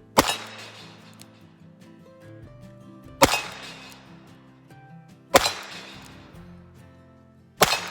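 Four single shots from a Smith & Wesson 317-3 AirLite .22 LR revolver, fired a couple of seconds apart, each with a short fading tail. Background music plays underneath.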